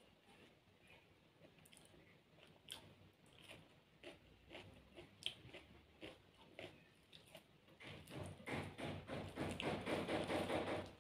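Close-miked eating sounds: soft chewing and fingers working rice and fried food on a plate, with scattered small clicks and squishes. About eight seconds in they grow denser and louder, a rapid wet squishing as the food is mixed by hand.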